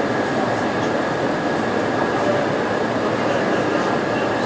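Moscow metro train running through the tunnel, heard from inside the car: a steady loud rumble and rush of wheels on rails, with a faint high steady whine running through it.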